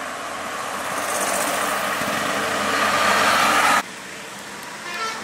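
Isuzu tanker truck passing close by, its engine and tyre noise swelling steadily, then cutting off abruptly a little before four seconds in, leaving quieter steady road noise.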